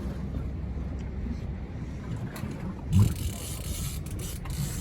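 Wind buffeting the microphone on a small boat at sea, over a steady low rumble. A single thump about three seconds in, after which a steady hiss comes in.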